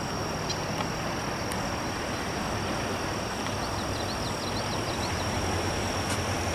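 Steady outdoor background noise, a low rumble with an even hiss and a constant thin high whine, with a few faint high chirps about halfway through.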